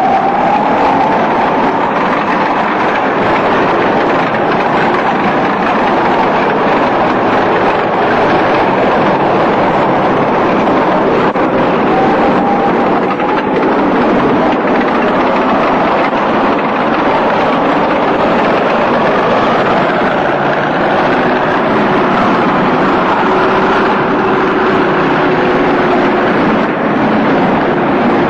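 Lever-steered all-terrain vehicle (vezdekhod) under way, heard from on board: its engine and running gear make a loud, steady roar throughout.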